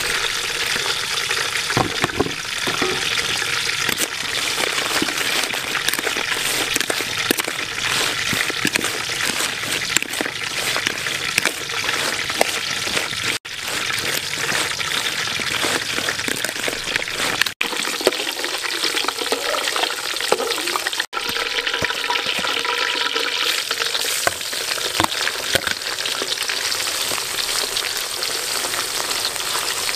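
Food sizzling in a wok: a steady crackling hiss that cuts out briefly three times.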